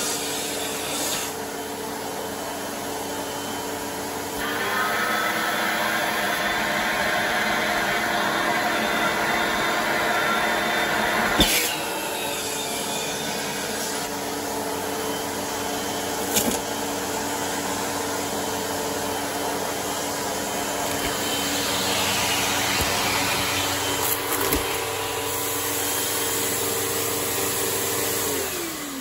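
Bagged Riccar 8905 vacuum cleaner running steadily while picking up a test mess of debris, with a few sharp clicks of debris going up the hose. The suction hiss gets louder about four seconds in, and near the end the motor winds down as it is switched off.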